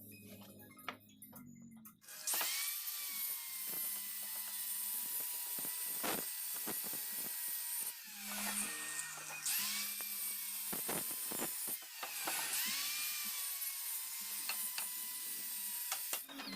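Electric woodworking power tool running with a harsh, high cutting noise, its motor whine dipping in pitch and recovering several times as it takes load in the wood. The first two seconds hold only quieter clicking before the tool starts.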